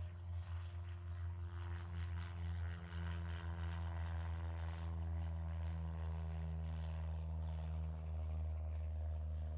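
Steady engine drone, a low hum with a stack of even overtones that holds its pitch throughout.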